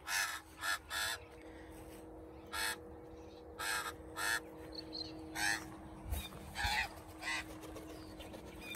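Australian magpies giving short, harsh, caw-like calls, about ten of them spread out over several seconds.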